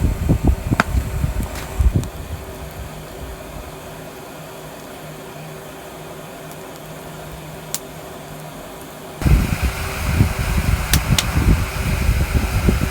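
Heat gun used as a forge blower, running steadily as it forces air through a pipe into a wood fire. Wind buffets the microphone in the first two seconds and again from about nine seconds in, with a few sharp clicks.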